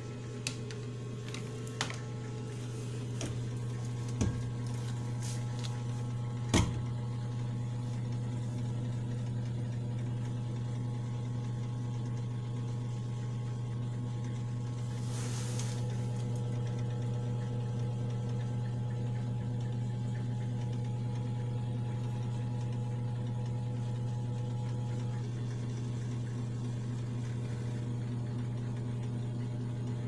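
Steady low electrical hum from a homemade refrigerator egg incubator, with a few sharp clicks and knocks in the first several seconds and a brief hiss a little past halfway.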